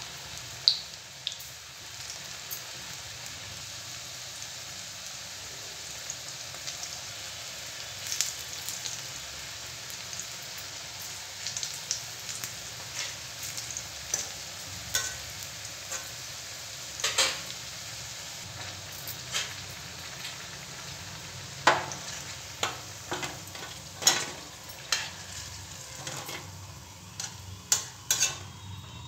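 Besan-battered okra pakoras deep-frying in hot oil in a kadhai, a steady sizzle. Sharp metal clicks of a slotted spoon against the pan come through it, more often near the end as the pakoras are lifted out.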